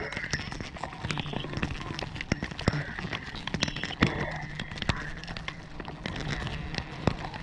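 Gloved hands and clothing scraping, rubbing and knocking against a tree's bark during a climb: an irregular run of sharp scrapes and taps, with a low hum underneath.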